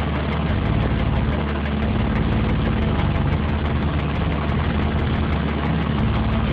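Cessna 150L's four-cylinder Continental O-200 engine and propeller running with a steady drone, heard from inside the cockpit.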